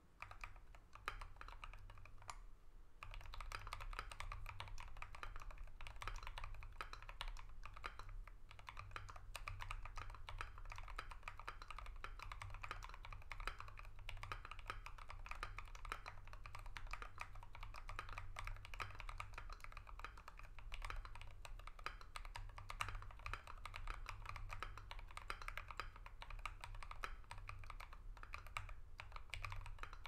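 Continuous typing on a custom 60% mechanical keyboard (KBDfans Tofu v2, brass plate with foam) fitted with lubed Creampaca linear switches and MT3 keycaps: a fast, steady stream of key clacks, softer for the first few seconds.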